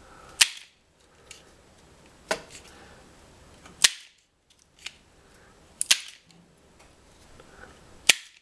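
Self-adjusting hand wire stripper snapping shut and springing open as it strips insulation from thin transformer leads. A sharp snap every second or two: four loud ones and a few fainter clicks between.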